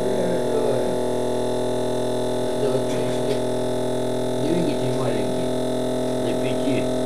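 Steady electrical hum made up of many even, unchanging tones, from a small motor rig running on supercapacitors, with a man's voice speaking briefly over it a few times.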